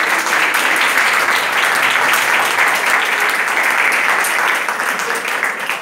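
Audience applause: many people clapping steadily throughout.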